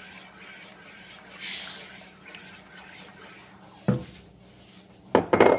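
Spatula stirring cream sauce in a pan, soft swishing with a low steady hum beneath. A sharp knock comes about four seconds in, and a short, louder burst of sound just before the end.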